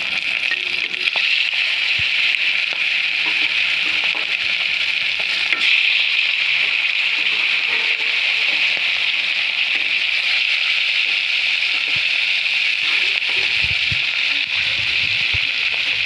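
Katla fish head and pieces frying in hot oil in a kadai, making a loud, steady sizzle with occasional small crackles.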